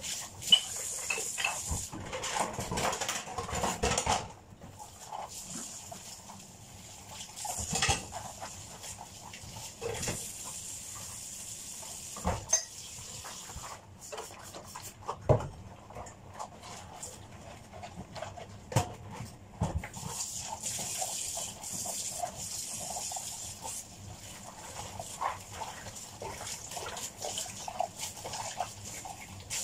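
Dishes being washed by hand in a kitchen sink: plates and utensils clinking and knocking against each other now and then, with scrubbing and rubbing between.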